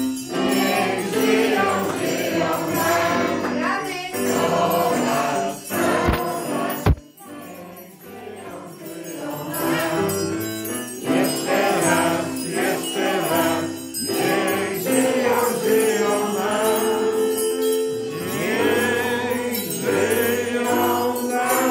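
A group of young children singing together to an electronic keyboard accompaniment. Two sharp knocks sound about six and seven seconds in, followed by a short quieter stretch.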